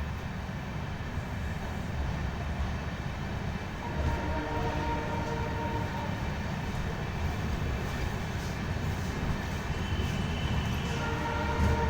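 A train running, with a steady low rumble. A long tone of several pitches together sounds twice: about four seconds in for a couple of seconds, and again near the end.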